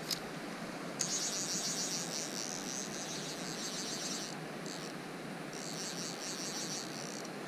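Fly reel's click-and-pawl ratchet buzzing as line is wound onto it. It starts about a second in and comes in three spells with short pauses between, over a steady low hiss.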